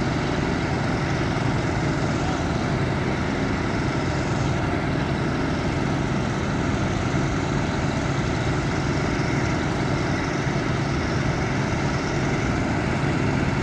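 Engine of a telescopic boom lift running steadily at an even idle, a constant low hum with mechanical noise over it.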